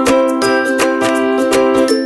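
Background music: plucked strings playing chords with a steady beat.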